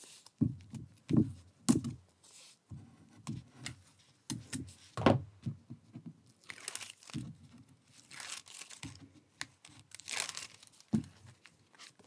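Sheets of card and paper being handled: crinkling and rustling, with several longer swishes as sheets slide against each other, and soft taps and knocks of card on the mat.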